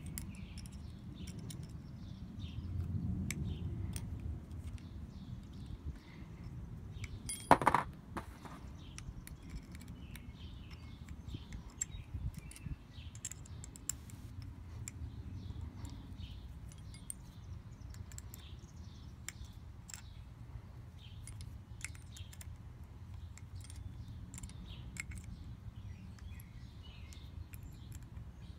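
Hands handling a Manfrotto 410 geared tripod head and small metal parts, giving scattered light clicks and taps, with a dull rumble of handling early on. About seven and a half seconds in there is one sharp, louder metallic clink that rings briefly.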